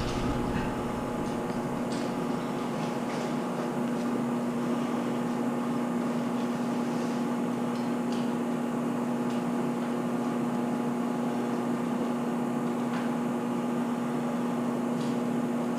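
Steady electrical hum: an unbroken low tone with fainter overtones, with a few faint ticks over it.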